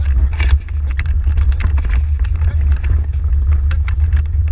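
Horse-drawn marathon carriage rolling over grass at speed: a heavy, steady low rumble with irregular rattling clatter, heard close up from a camera mounted on the carriage's rear step.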